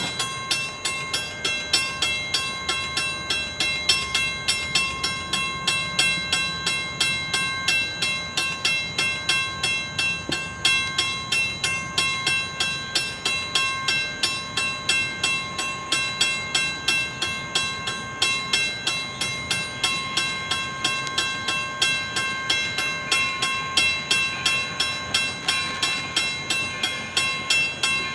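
Railroad grade-crossing warning bell ringing in a steady, even rhythm of about three strikes a second, the crossing's warning for an approaching train.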